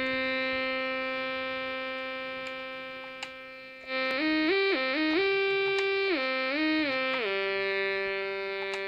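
Arduino-based Mozzi digital synthesizer playing a held chord that slowly fades, then about four seconds in a new chord whose notes glide smoothly up and down between pitches with portamento, settling on a held chord near the end.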